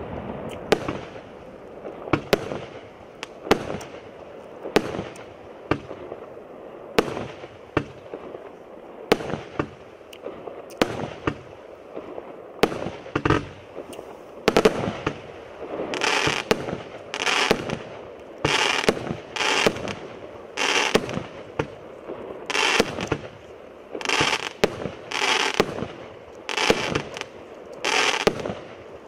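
Evolution Fireworks 'Atlas' multi-shot firework cake firing a steady run of shots, about one a second. From about halfway through, each shot comes with a longer, noisier burst.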